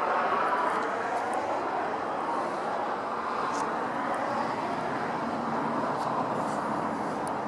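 Steady whoosh of road traffic, a little louder in the first second.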